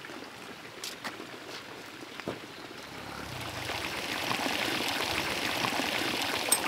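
Hot-spring water pouring steadily into a pool. It comes in about three seconds in and swells to a constant rush.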